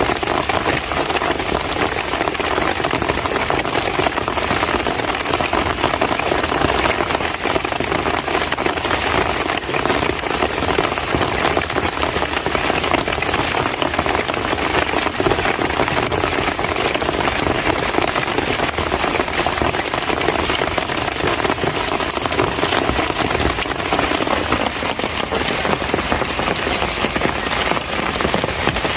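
Steady heavy rain pattering on surfaces: a continuous, even hiss of monsoon-season downpour.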